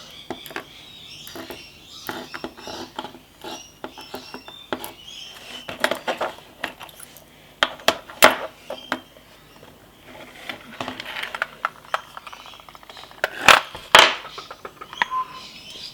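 The small metal pins and springs from a gutted pin-tumbler padlock clicking and tapping as they are handled and laid out on a hard surface. The clicks are scattered, with a quick run of fine ticks partway through and two louder knocks near the end.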